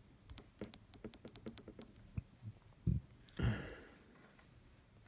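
Small clicks and taps of phone repair work: a phone and small tools being handled on a bench, with a low thump about three seconds in and a short rustling noise just after.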